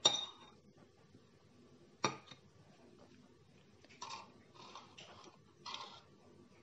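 A metal spoon clinks sharply twice, about two seconds apart, then scrapes and scoops a few times in a plastic cup of thick ryazhenka.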